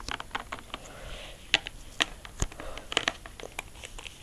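Irregular clicks, taps and rustles of small plastic toys and a plastic tub being handled close to the microphone.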